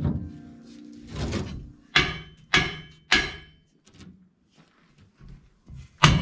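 Sharp metal-on-metal strikes, three in quick succession about half a second apart and one more near the end, each followed by a brief high ring.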